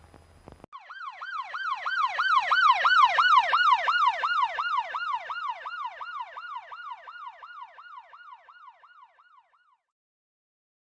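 Emergency vehicle siren in a fast yelp, its pitch sweeping up and down about three times a second. It comes in just under a second in, grows louder over the next couple of seconds, then fades away about a second before the end.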